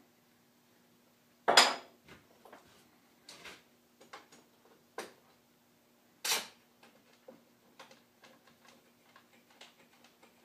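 Metal clamps clanking and clicking as they are set over a glued-up board and adjusted: two louder clanks, about one and a half and six seconds in, with lighter clicks and taps between.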